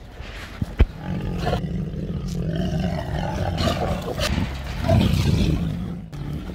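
Siberian tigers growling low and continuously while they crowd in to feed, with a single sharp knock about a second in.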